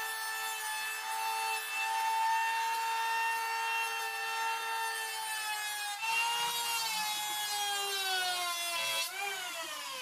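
Electric hand planer running, its spinning cutter shaving a wooden board: a steady high motor whine over a rushing hiss of cutting. Near the end the whine's pitch falls as the motor winds down.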